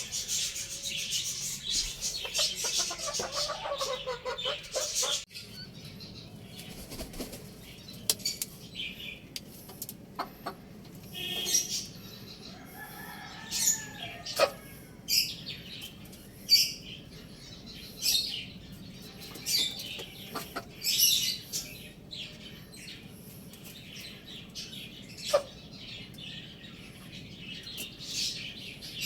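Chickens clucking and calling. There is dense calling for the first five seconds, then an abrupt change to scattered short, sharp calls and sounds.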